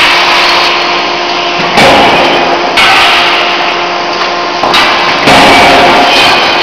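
CNC closed-die forging hammer striking the workpiece, three blows about a second, then two and a half seconds apart, over the steady hum and noise of the running machinery.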